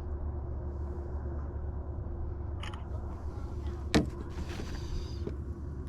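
Steady low rumble of wind on the microphone, with a sharp knock about four seconds in and a short rustle after it.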